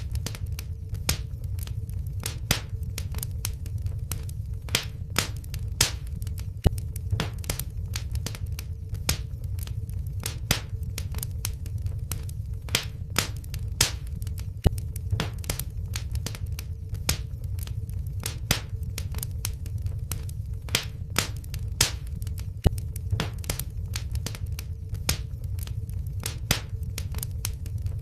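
Wood fire crackling in a fireplace: irregular sharp pops and snaps, several a second, over a steady low rumble.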